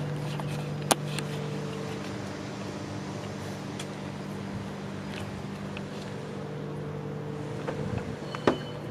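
A steady low mechanical hum, with a sharp click about a second in and another near the end.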